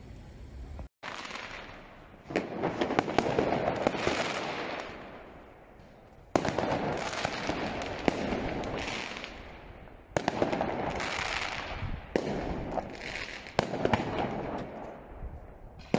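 Firework mortars bursting overhead in repeated salvos. Each salvo opens with a sharp bang, then a dense spray of crackling and hiss that fades, with a new salvo every two to four seconds.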